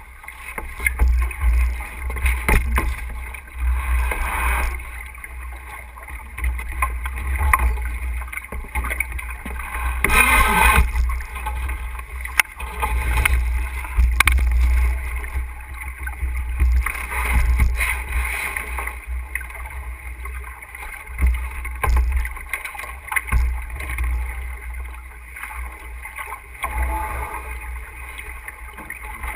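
Wind buffeting a camera microphone on a sailboat's bow, with sailcloth flapping and rustling close against it. The buffeting swells and fades, and it is loudest and densest around ten seconds in.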